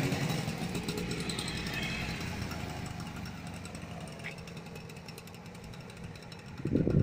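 Small two-stroke motorcycles pulling away and riding off, their engine note fading steadily into the distance.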